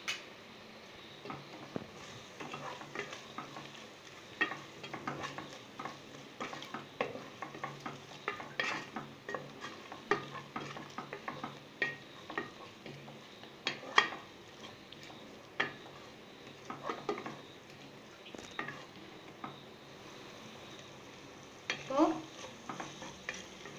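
A wooden spatula stirs and scrapes spices frying in oil in an aluminium pressure-cooker pot, with irregular scrapes and knocks against the metal and a light sizzle underneath. This is the masala, chilli powder and biryani masala, being sautéed into the onion-tomato base.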